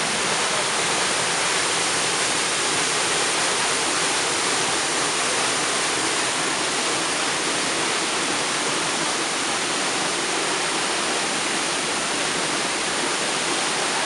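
Large waterfall pouring close by: a steady, unbroken rush of falling water.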